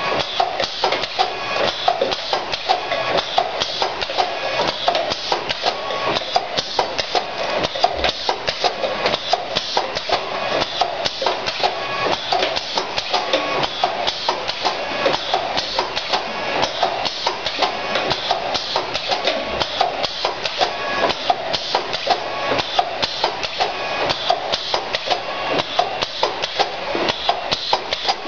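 SJ 5F powder bottle filling machine running: a steady, rhythmic clatter of clicks and knocks, a few a second, with no let-up.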